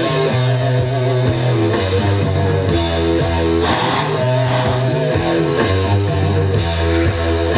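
Rock music with guitar over a steady bass line and drums, with crashing hits every second or so.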